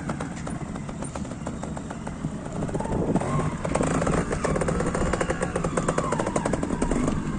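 Trials motorcycle engine running in rapid firing pulses, revving harder about three seconds in as the bike is ridden up onto the stone blocks.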